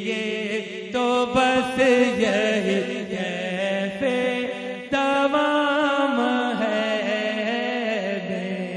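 Unaccompanied naat recitation: a man's voice singing long, drawn-out melismatic phrases, with fresh phrases starting about a second in and again about five seconds in, over a steady drone of backing voices.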